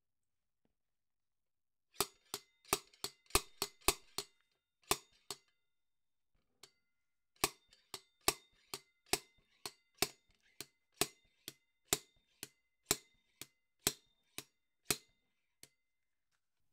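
Slide hammer being worked on a blind bearing puller in a motorcycle front wheel hub: repeated sharp metal-on-metal clanks of the hammer weight striking its stop, about two a second, with a short pause partway through. The bearing is being driven out against corrosion that is holding it in the hub.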